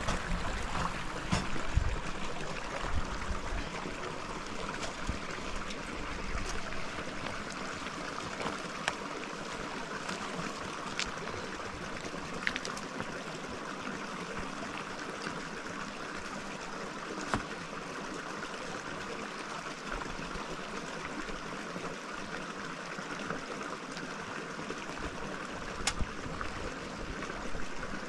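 Steady rush of flowing stream water, with a few faint clicks and knocks scattered through it.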